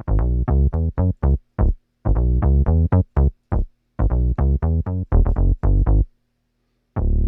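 Software synth bass patch made to imitate the Future Impact bass synth: a rhythmic phrase of short, staccato bass notes that stops about six seconds in, followed by a held note starting near the end.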